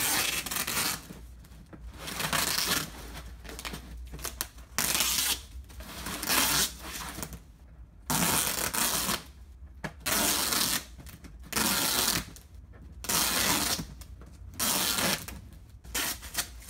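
Packing tape being pulled off its roll in about ten long rips, roughly one every second or so, as it is wound round cardboard.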